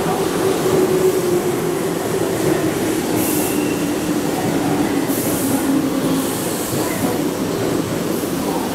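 Keihan 2200 series electric commuter train running over curved track and points, a steady running noise with a strong low tone that slowly sinks in pitch. Short high-pitched hisses and a brief wheel squeal come from the curves about three seconds in and again about five seconds in.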